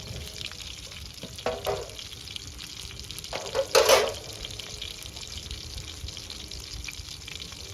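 Steady crackling and sizzling of food cooking over a wood fire, full of small pops. Two short louder sounds break in, about a second and a half and about four seconds in, the second the louder.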